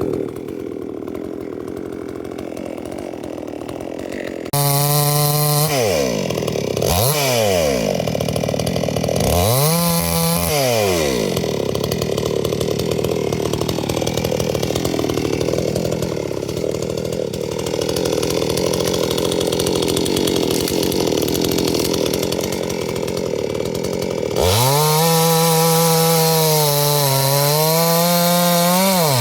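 Chainsaw running: quieter for the first few seconds, then revved hard with the revs dropping and climbing back twice, then held under load cutting into wood for a long stretch, and revving freely again near the end.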